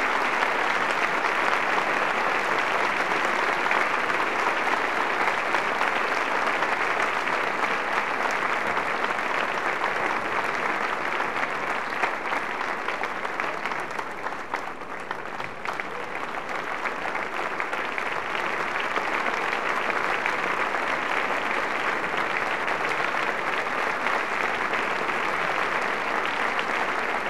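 Theatre audience applauding the cast's curtain call at the end of an opera, with dense, steady clapping. It thins briefly about halfway through, then swells again.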